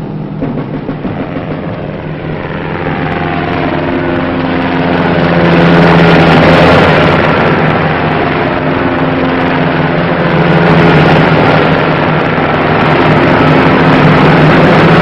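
UH-1 Huey gunship helicopter flying past, its rotor and turbine sound swelling to loud peaks about six seconds in and again later, with a falling pitch as it goes by.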